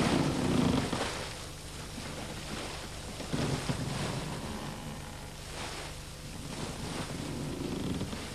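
Sea and wind ambience, with waves swelling three times over a steady low hum.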